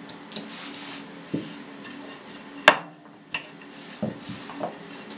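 Hands stretching and rubbing thin dough on a floured countertop, with a steady low hum underneath. Several sharp knocks and clicks cut through, the sharpest about two and a half seconds in, and more come near the end as a wooden rolling pin is picked up and set against the counter.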